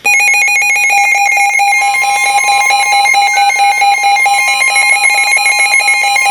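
Several NOAA weather radios alarming at once for a newly issued severe thunderstorm warning: loud overlapping electronic beeping that starts suddenly. About two seconds in, the steady weather radio attention tone joins it.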